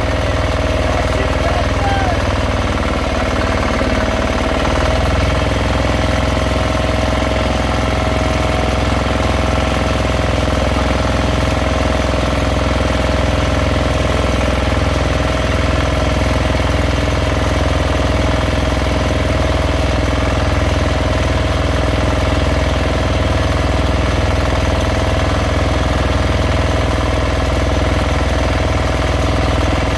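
Fishing boat's engine running steadily with a constant drone, its low end changing slightly about five seconds in.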